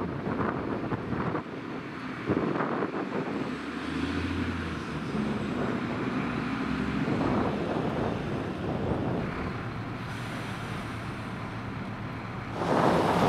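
Diesel engine of a Liebherr all-terrain mobile crane running as the heavy crane pulls slowly out of its bay, with wind buffeting the microphone, loudest near the end.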